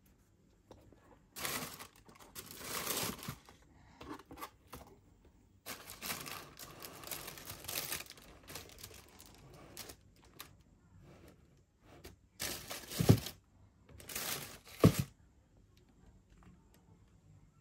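Shoebox tissue paper crinkling and rustling in several bursts as it is handled, with two sharp knocks about two seconds apart near the end.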